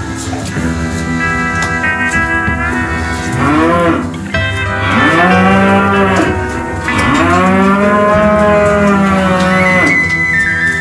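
Highland cattle mooing: a short call a few seconds in, then two long, drawn-out moos that rise and fall in pitch, over background music.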